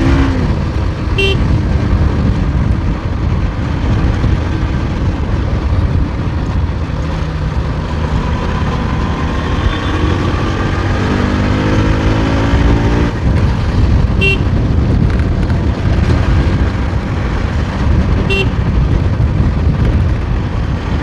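Bajaj Pulsar NS200's single-cylinder engine under way, pulling up in revs as it accelerates about eleven seconds in, over heavy wind rumble on the microphone. Three short horn toots from traffic, about a second in, at fourteen and at eighteen seconds.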